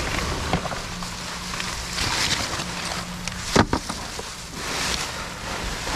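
Rustling noise over a faint steady hum, with one sharp knock about three and a half seconds in, as leaves, trash and scrap in a dumpster are shifted around.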